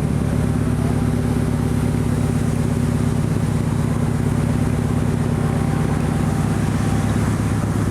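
Subaru Impreza STI's turbocharged flat-four boxer engine idling steadily, a low, even exhaust note with no revving.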